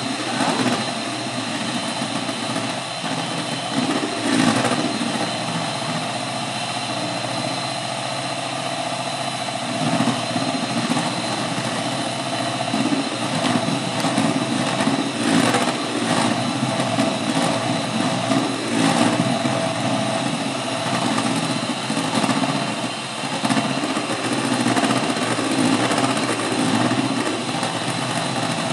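Electric hand mixer running steadily, its twin beaters whipping egg whites into a thick meringue for a marshmallow filling.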